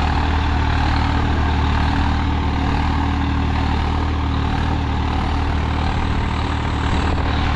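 Swaraj 855 FE tractor's three-cylinder diesel engine running steadily, heard close up as a deep, even hum.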